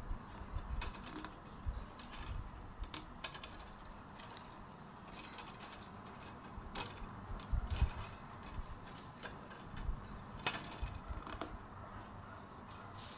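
Thin split-bamboo strips clicking and rustling as they are woven by hand, with irregular light ticks and taps as strips are lifted, threaded through and pressed together.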